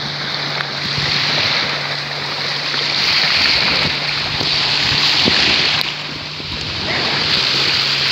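Small sea waves washing up and breaking on a sandy shore, swelling and easing, with wind on the microphone.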